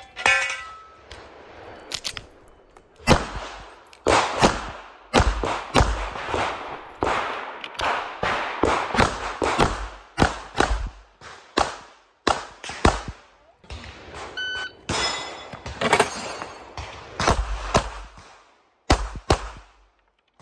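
Compact handgun firing in rapid strings of sharp shots with short echoes, grouped in quick bursts with brief pauses between target arrays.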